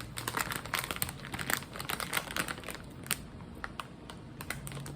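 A popcorn bag crinkling and popcorn crunching as it is eaten. The crackling is dense and irregular for about three seconds, then thins to scattered clicks.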